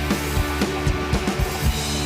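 Rock background music: electric guitar and bass over a steady drum-kit beat.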